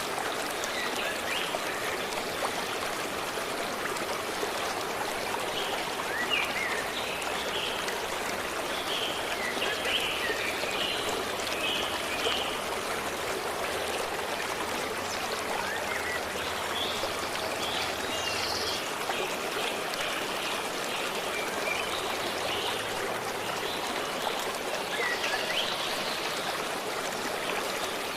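A forest stream running steadily, with birds chirping on and off above it.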